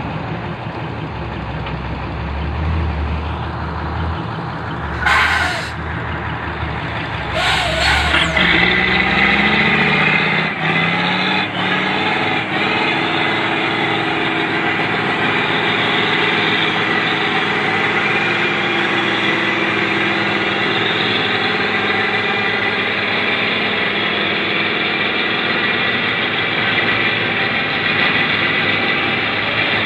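Heavy diesel engine of a Mercedes 3836 log truck running under load, with two short, sharp air hisses about five and eight seconds in. Then the engine's pitch climbs and it holds steady at high revs.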